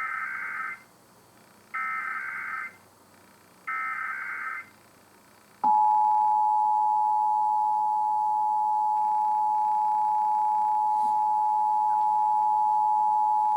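Emergency Alert System activation tones: three bursts of SAME header data, each just under a second long, then about six seconds in the EAS attention signal begins, two steady tones of 853 and 960 Hz sounded together and held.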